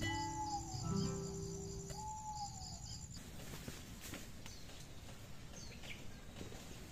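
Soft, slow background music over crickets chirping in steady high pulses, cutting off abruptly about three seconds in. It gives way to quieter rural daytime ambience with a few faint bird chirps.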